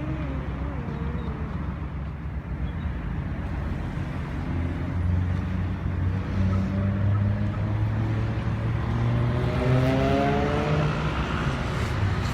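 A motor vehicle's engine runs close by with street noise around it. It gets louder about four to five seconds in, then rises in pitch as the vehicle accelerates near the end.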